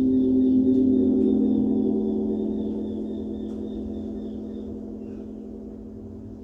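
Gong ringing with a deep, layered hum that slowly fades, as in a gong sound bath; a new swell comes in just after.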